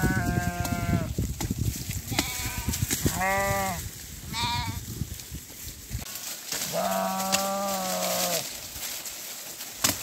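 Sheep bleating: about five separate bleats, long ones at the start and near the end, with three shorter ones in between, one of them higher-pitched. A low rumbling noise runs under the first half.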